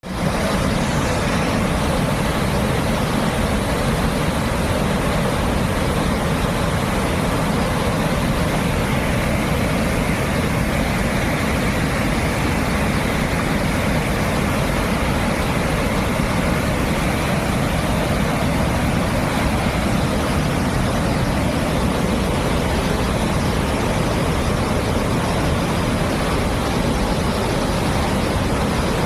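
Waterfall: a steady, loud rush of falling water, heavy in the low end.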